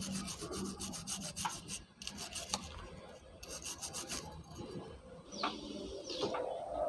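A stiff brush scrubbing a small brass clock gear wheel clean with petrol, in quick scratchy strokes. There are two spells of brushing, the second ending about four seconds in.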